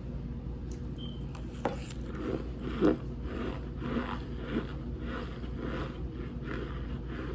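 Close-up eating of a chunk of cornstarch: a crunch or two, the loudest about three seconds in, then steady chewing about twice a second, over a low steady hum.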